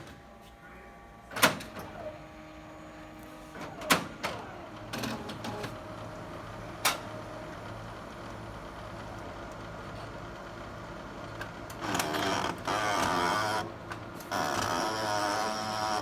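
OKI C931e colour laser printer going through its startup: a steady hum broken by three sharp clacks in the first seven seconds, then from about twelve seconds in a loud grinding, whirring mechanical run with a whine that pauses briefly and starts again. This is the loud startup noise the owner is troubled by.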